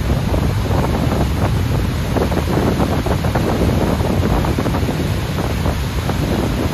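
Multi-tiered waterfall rushing steadily down into a narrow rock gorge, with wind buffeting the microphone.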